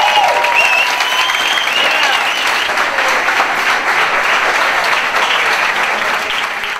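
Live audience applauding, a dense steady clapping.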